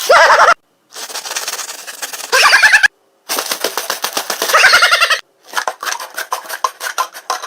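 Fast runs of clicks or crackles in several short bursts cut apart by sudden silences, with brief high-pitched voice cries over them.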